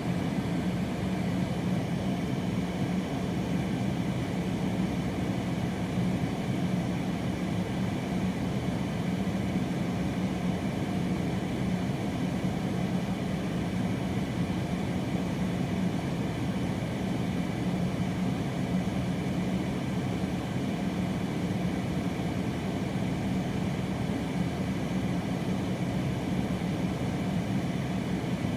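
Strong wind blowing steadily, with a low steady hum underneath.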